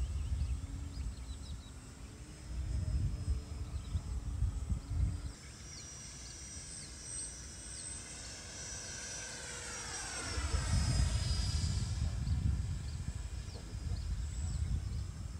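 FMS Yak-130 electric ducted-fan model jet flying past overhead: a whine of several tones whose pitch sweeps down as it goes by, about ten seconds in. Low rumbling gusts of wind on the microphone come and go underneath.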